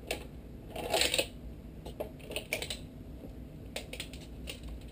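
Light clicks and rattles of hands handling a pocket tape measure and the beads and wire of a lure rig, with a short scraping rasp about a second in.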